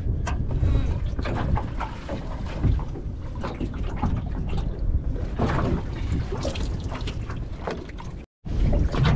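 Wind buffeting the microphone over sloshing and trickling seawater as a soft bag is dipped over the side of a small aluminium boat and filled, with scattered knocks on the hull. The sound cuts out for a moment near the end.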